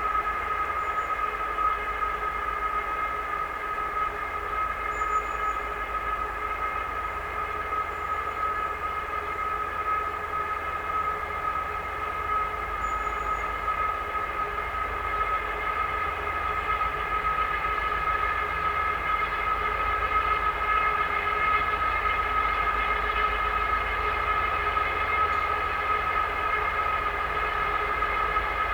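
2TE10UK freight diesel locomotive giving off a strange steady whine made of several high tones at once, over a low running rumble, growing slightly louder about two-thirds of the way through.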